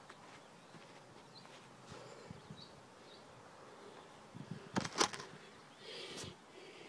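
A few footsteps crunching on gravel, loudest about five seconds in, followed by handling noise as the phone is picked up and moved.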